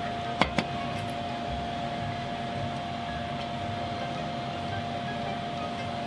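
Steady electrical hum from a kitchen appliance, a high tone over a lower one. Two sharp knocks come about half a second in as a wooden spatula stirs thick roux in a stainless saucepan.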